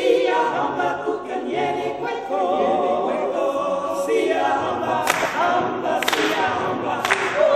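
A choir singing unaccompanied, several voices holding notes with a wavering vibrato and moving from chord to chord.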